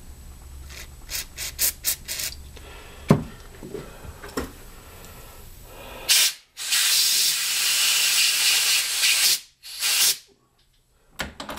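Aerosol carburetor cleaner sprayed through a thin extension straw into a small brass carburetor metering jet in a quick series of short bursts, with a sharp knock about three seconds in. Later comes a loud steady hiss lasting about three seconds, with shorter bursts just before and after it.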